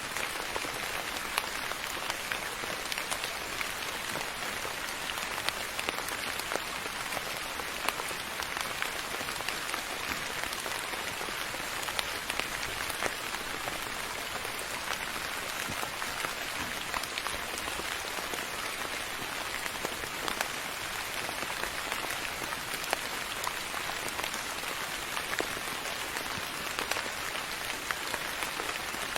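Steady rain falling, an even hiss with scattered sharper drop taps.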